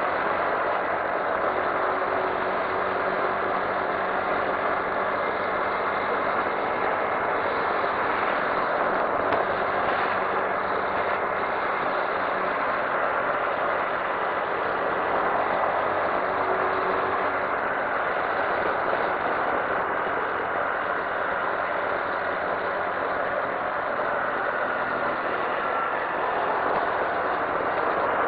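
Honda Navi110 scooter's small single-cylinder engine running at a steady cruise while riding, under a constant rush of road and air noise.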